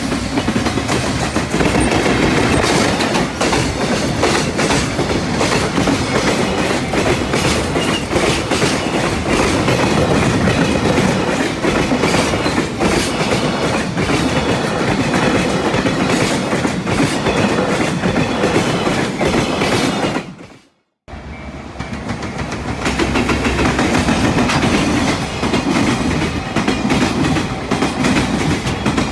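Trains running past at close range, wheels clattering over the rail joints in a dense, steady stream of clacks. About twenty seconds in the sound fades and cuts out for a moment, then another train passage carries on.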